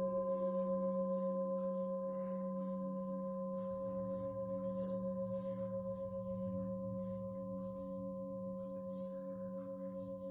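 Singing bowl ringing after a single strike: a long held tone with a slow pulsing waver, fading gradually.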